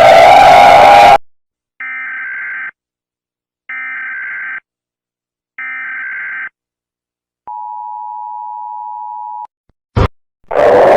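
Emergency Alert System alarm sequence: three short bursts of warbling SAME header data tones about a second apart, then the steady two-tone attention signal held for about two seconds. A loud, noisy sound cuts off about a second in, a sharp click comes near the end, and loud noise starts again in the last half second.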